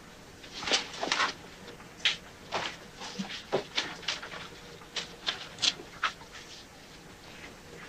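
Footsteps on a hard floor: about a dozen short, sharp steps and scuffs over some five seconds, irregularly spaced, then they stop.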